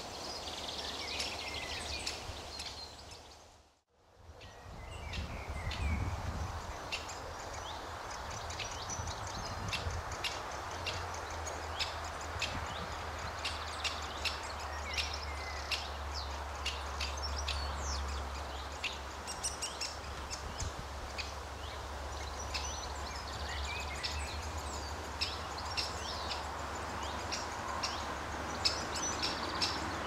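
Young great spotted woodpecker calling from its nest hole, a run of short sharp calls several a second, with other small birds singing and a steady low rumble underneath. The sound dips out briefly about four seconds in.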